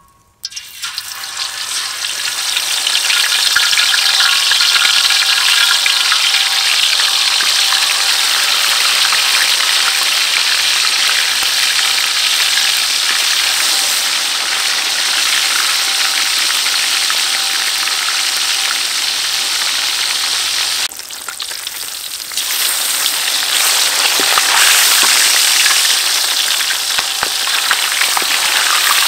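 Whole scored fish going into hot oil in a steel wok, setting off a loud sizzle that builds over the first few seconds and keeps up as the fish fry. The sizzle drops briefly about three-quarters of the way through, then comes back.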